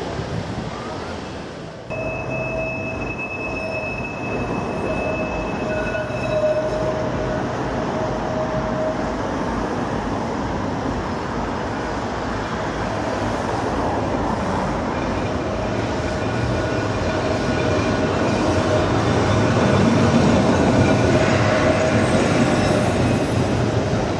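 Tram running along street track toward and past the listener, with a rumble and steady high-pitched wheel squeals and whines. It grows louder to a peak about twenty seconds in, then eases. It starts suddenly about two seconds in, after a short stretch of wind-like noise.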